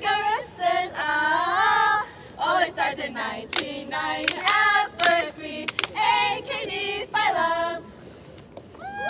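A group of young women singing a chant together in unison, with a few sharp claps around the middle; the singing stops about eight seconds in.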